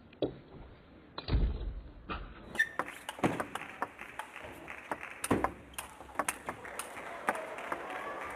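Table tennis rally: the ball clicking sharply off the paddles and the table in quick alternation, about two or three hits a second, with a ringing hall echo. Before it come a few isolated knocks and one dull thump.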